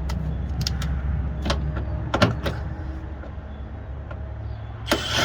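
Scattered sharp clicks and knocks of a seat-belt trim part being fitted back into place, with a louder scraping rustle about five seconds in, over a steady low hum.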